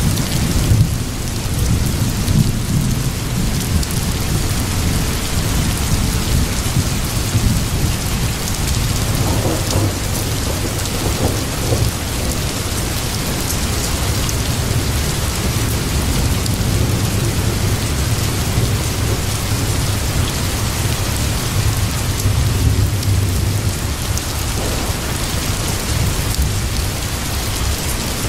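Steady rain with a continuous low rumble of thunder: a thunderstorm ambience.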